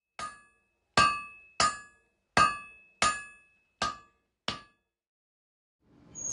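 Blacksmith's hammer striking an anvil seven times in an uneven rhythm. Each blow gives a bright ring that dies away quickly.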